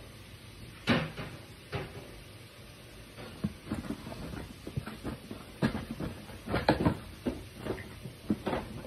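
Handling noise: irregular clicks and knocks of hard objects being picked up and set down, the sharpest about a second in and coming more often in the second half.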